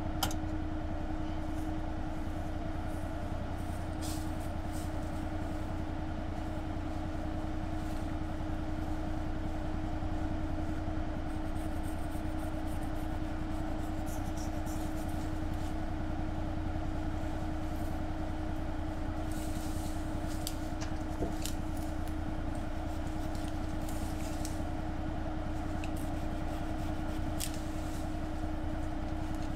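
Can-Am Defender HD10 side-by-side's V-twin engine running steadily under way, a constant drone with a steady whine, with scattered light clicks and rattles.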